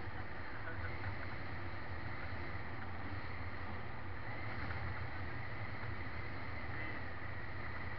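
Steady running noise of a vehicle moving along a paved road: a constant low engine and tyre hum with wind rushing over the microphone.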